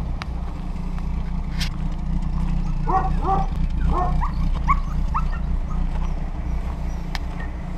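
A dog yipping and barking in a quick run of short, high calls about three to five seconds in, over the steady low drone of an idling car engine.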